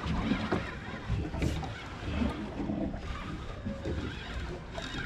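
Wind on the microphone and sea water against a small fishing boat's hull, an irregular low rumble, while a fish is reeled up on rod and reel.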